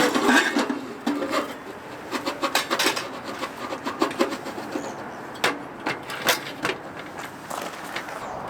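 Irregular clicks, knocks and rubbing as objects are handled, with the louder knocks near the start and again around the middle.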